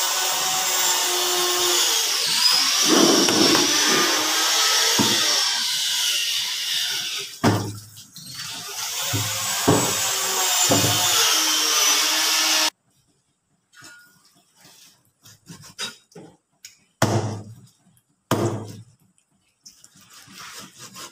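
A loud, steady rushing hiss that cuts off suddenly about halfway through, followed by a few separate heavy chops of a meat cleaver on a chopping board.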